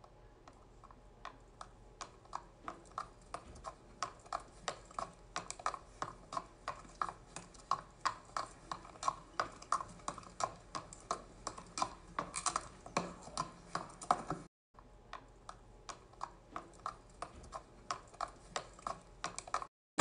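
Faint hooves of saddled horses walking on a dirt trail, clopping in a steady, slightly uneven rhythm of two or three strikes a second. They grow louder toward the middle.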